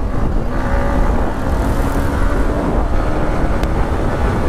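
Motorcycle engine running at road speed under the rider, its note shifting a little about half a second in, over a heavy low rumble of wind on the microphone.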